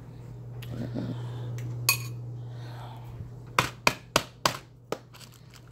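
Plastic deli container being pried open: a single sharp click, then a quick run of about five sharp plastic clicks and snaps in the second half. A low steady hum sits underneath in the first half and fades out.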